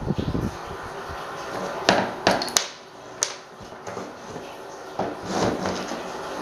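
Handling noises from disassembling an old electric fan motor. A rapid rattling scrape of a screwdriver against the motor housing stops about half a second in, followed by a few sharp clicks and knocks as the metal motor, its wires and its capacitor are handled on the workbench.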